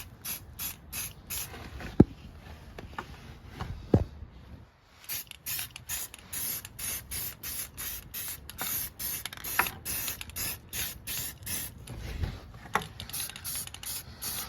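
Aerosol spray-paint can in use: a rapid, even run of short bursts, about four a second, with a brief pause about a third of the way in. Two sharp knocks stand out in the first few seconds.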